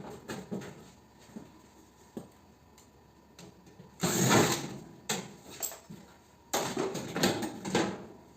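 Metal parts of a mini split air conditioner being handled and worked apart with hand tools: scattered clicks and knocks, a louder scraping rattle about four seconds in, and another run of knocks near the end.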